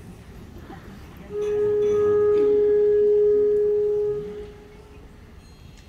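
A wind instrument holds a single steady note for about three seconds, then fades out, with no other instruments joining.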